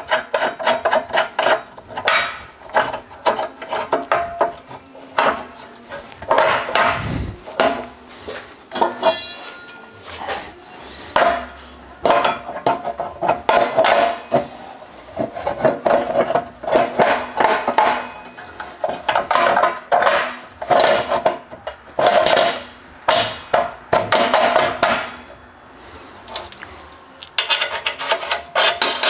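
Laser-cut steel spindle plates clinking, knocking and scraping against each other and the steel fixture as they are fitted together, in a rapid run of short metallic knocks, some ringing briefly.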